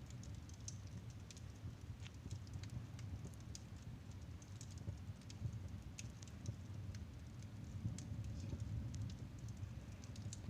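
Wood fire crackling in a fireplace: sharp, irregular pops and crackles over a low, steady rumble.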